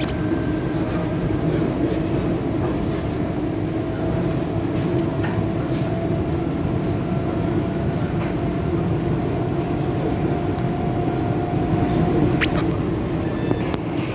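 EP2D electric multiple unit running along the line: a steady rumble of wheels on rail with a constant motor hum and a few sharp clicks.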